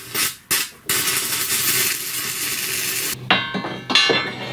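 Stick-welding arc crackling and hissing on a steel plate, starting and stopping a few times in the first second and then burning steadily for about two seconds. Near the end, steel plates clank and ring as they are handled.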